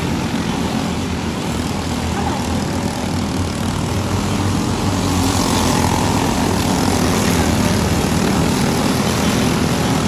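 Several racing karts' small engines running around a dirt oval, a steady layered drone that swells louder and brighter from about halfway through as a kart passes close.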